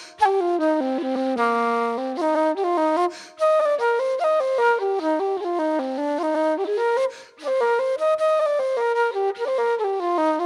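Background music: a melody line in rising and falling stepwise phrases, broken by short pauses about three and seven seconds in.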